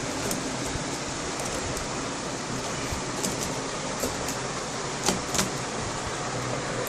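Steady background hiss, like a fan or air conditioner running, with a few light clicks in the middle and two sharper clicks about five seconds in.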